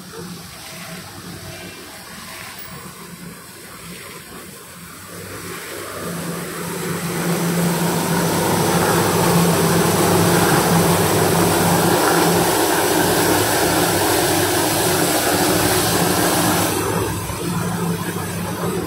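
Industrial wood-door sanding machine running, its sanding rollers and discs working a lacquered panel: a steady motor hum under a loud hissing grind. The grind swells about six to eight seconds in and eases a little near the end.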